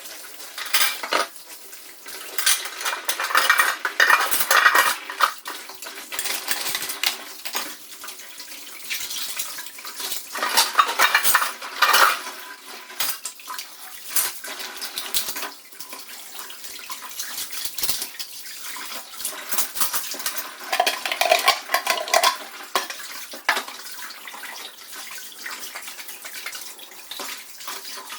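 Dishes and plastic containers clinking and clattering as they are handled and washed, with water running from a tap. The clatter comes in busy spells a few seconds apart.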